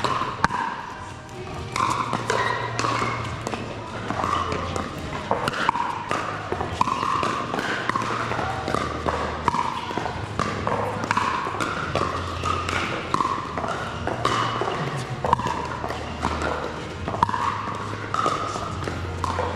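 Background music with a bass line, over the repeated sharp pops of pickleball paddles hitting the plastic ball in a rally.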